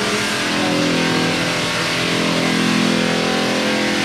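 Electric floor sanding machine running steadily on a hardwood floor: a constant motor hum with a hiss of abrasive on wood over it.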